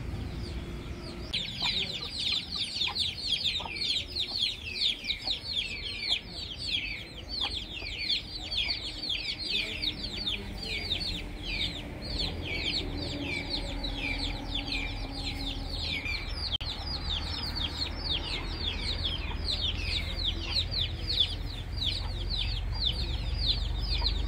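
Many small birds chirping: a dense, continuous chorus of high, quick falling chirps, several a second, starting about a second in, with low chicken clucking underneath.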